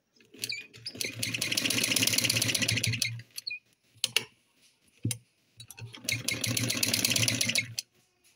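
Sewing machine stitching a seam in two runs of about two seconds each, a fast, even clatter of the needle over a low hum. A few single clicks fall in the pause between the runs.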